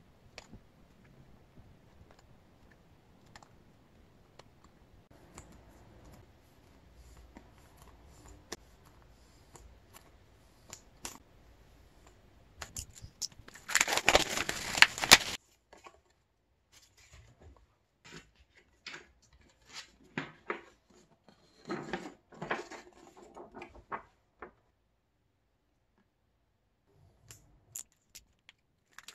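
Hands handling photocards and a shrink-wrapped album: quiet card shuffling and taps, then a loud crinkle of the plastic wrap about halfway through. Scattered clicks and rustles follow, and near the end a utility knife scores the wrap.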